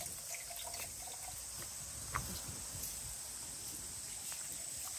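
Faint steady trickle of running water, with a few light clicks and one small knock about two seconds in.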